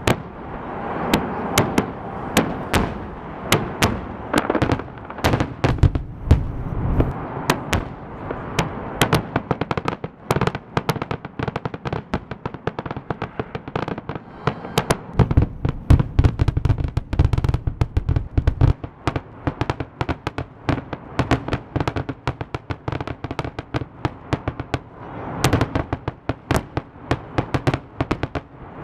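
Fireworks display: a dense, rapid run of crackling pops and sharp bangs, with heavier deep booms bunched a few seconds in and again about halfway through.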